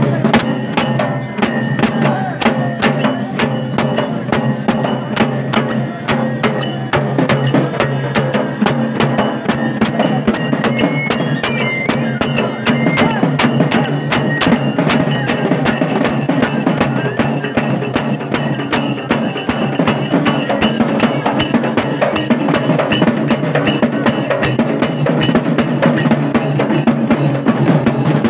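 Live folk percussion: drums beaten in a fast, steady rhythm with small hand cymbals clashing along.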